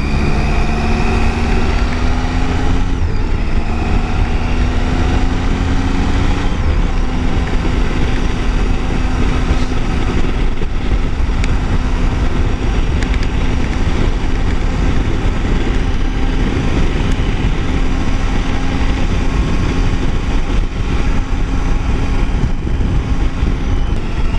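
Motorcycle engine running under way, its note rising for the first few seconds, dropping with a shift about six and a half seconds in, then holding steady at cruise. Heavy wind rumble on the microphone runs under it.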